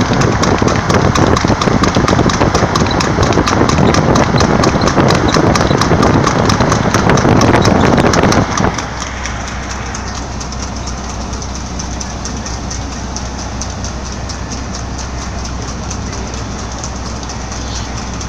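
Hooves of a harness horse pulling a racing sulky beating rapidly on tarmac at speed, under loud wind and road noise. About nine seconds in the sound drops suddenly to a quieter steady road rumble with fainter hoofbeats.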